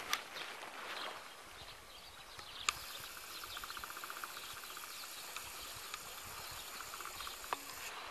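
Outdoor ambience of small birds chirping and a rapid ticking trill for about two seconds near the middle, over the rustle of footsteps through long grass, with a few sharp clicks.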